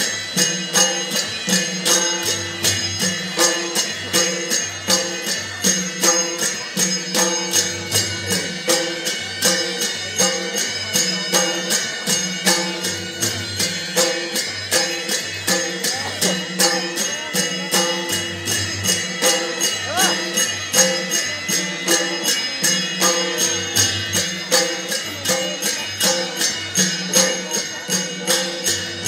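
Traditional Newar dance music for a Bhairab dance: fast, even metal cymbal strikes, several a second, over low drum beats in a repeating pattern, with a few steady held tones underneath.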